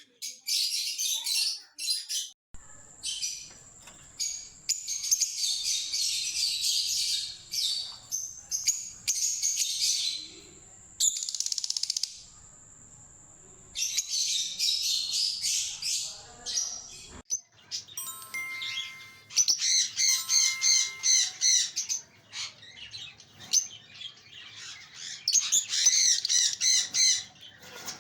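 Fischer's lovebirds chattering: rapid, high-pitched chirps and squeaks in dense bursts, broken by short pauses.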